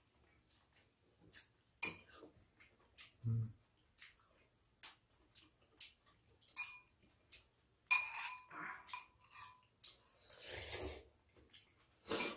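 Metal spoons and chopsticks clinking and scraping against ceramic bowls during a meal: scattered sharp clinks, the loudest about eight seconds in with a brief ring. A dull low knock comes a little after three seconds, and a short breathy rush of noise near eleven seconds.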